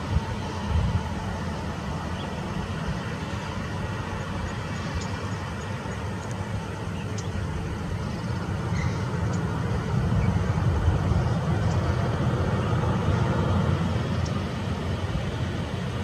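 A Boeing 737-800's CFM56 jet engines running at idle as the airliner taxis after landing: a steady jet noise, growing a little louder about ten seconds in.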